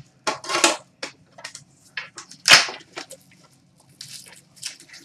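Hockey card packaging being torn open by hand: short, irregular crackles and rips of wrapper and cardboard, one louder rip about two and a half seconds in.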